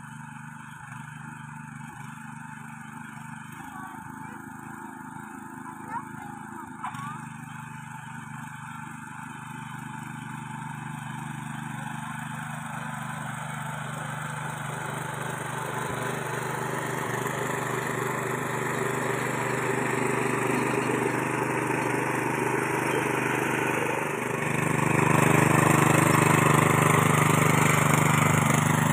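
ProQuip mini cultivator's small engine running steadily under load while its rotary tines till dry, grassy soil, growing louder as it comes closer and jumping in loudness near the end as it passes close by. Two short clicks about six and seven seconds in.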